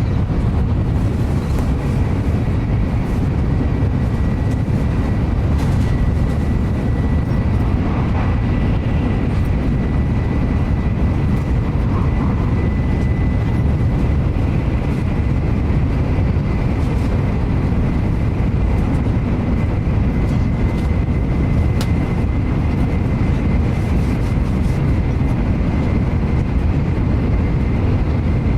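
Interior of a Shinkansen passenger car while the train is running: a steady low rumble and rushing noise. A faint high whine comes in a few seconds in and holds steady.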